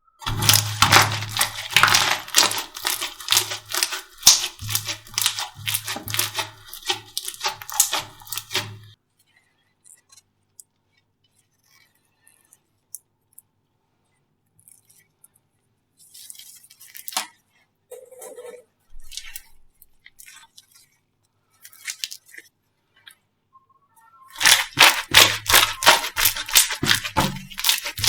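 Slime being squeezed and poked by hand, giving rapid wet crackling and popping clicks. The clicking is dense for the first several seconds, thins to scattered faint clicks, and turns dense again near the end.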